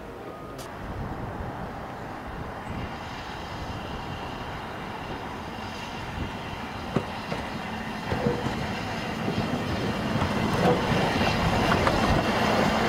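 Double Fairlie narrow-gauge steam locomotive Merddin Emrys drawing a train of carriages toward the listener, its running noise growing steadily louder, with a few sharp knocks about seven and eight seconds in.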